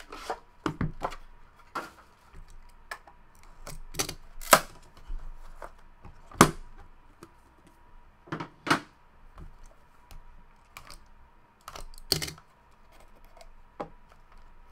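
A cardboard trading-card box being handled and opened: irregular sharp clicks, taps and knocks as the outer sleeve is slid off, the box is set on the table and its lid is worked open.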